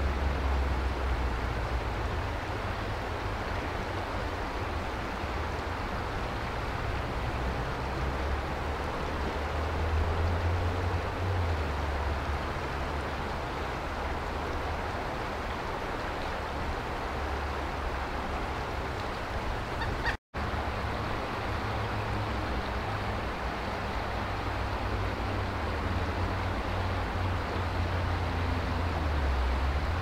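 Steady rushing outdoor background noise with a low rumble, with a brief cut to silence about twenty seconds in. No distinct woodpecker taps stand out.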